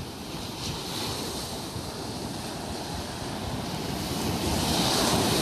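Ocean surf breaking and washing up a sandy beach, with wind buffeting the microphone; the wash swells louder near the end.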